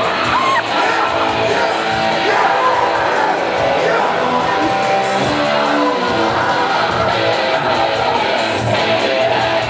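Live amateur rock jam: guitar strummed with a voice singing into a microphone over it, loud and continuous.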